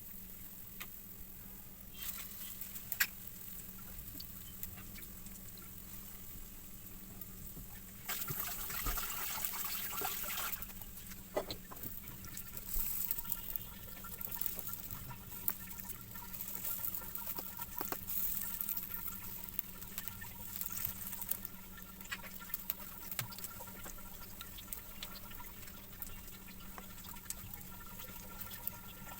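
Kitchen work noises: scattered clicks and clatter over a steady low hum, with a stretch of hissing that starts suddenly about eight seconds in and comes and goes until about twenty seconds in.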